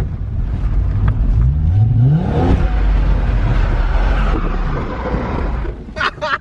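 Holden VS Commodore's engine revving hard, its pitch climbing over about a second and a half, then held high with a loud, broad rush of noise that eases off near the end.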